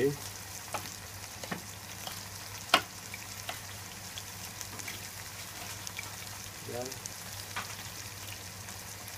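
Steady sizzle of food frying in a pan, with a few sharp knife taps on a cutting board as a red chili is sliced; the loudest tap comes a little under three seconds in.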